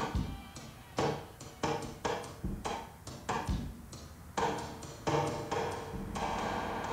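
Background music: a slow, even series of single pitched notes, each struck and ringing out before the next.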